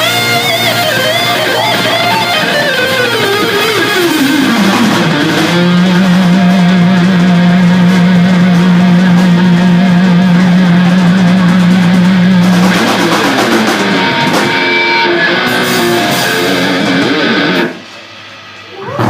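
Live rock band jamming: electric guitars with bass and drums playing loud, heavy rock. Pitches slide downward in the first few seconds, a low note is held for about seven seconds in the middle, and the music drops away about a second before the end.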